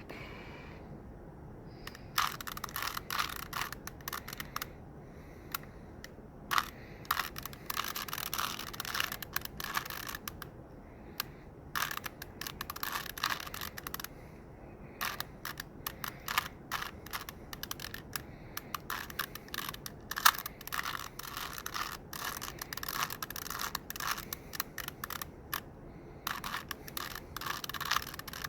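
Plastic Rubik's cube being turned by hand: runs of quick clicking and scraping layer turns, broken by short pauses.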